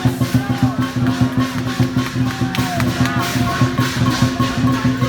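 Dragon-dance percussion: drum and cymbals played in a fast, steady beat, over a low sustained hum.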